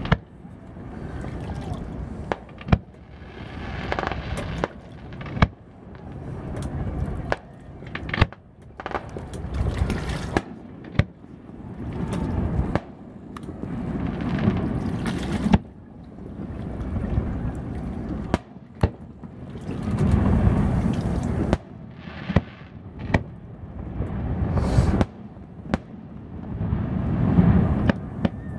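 Aerial fireworks display: a steady run of sharp bangs from bursting shells, with low rumbling booms between them that swell and die away over a second or two.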